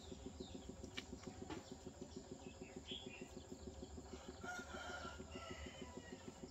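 A rooster crowing once, faintly, starting about four and a half seconds in. Underneath runs a steady low hum that pulses several times a second.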